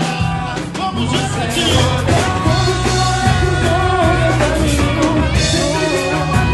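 Samba group playing, with a voice singing a melody over a steady bass line and percussion beats.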